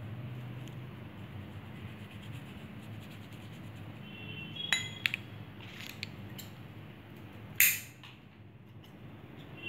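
Handling of craft things on a table while painting a small plastic bottle: a few light clicks and taps about halfway through, then a sharp clatter a little before the end as the paintbrush and other items are put down, over a steady low hum.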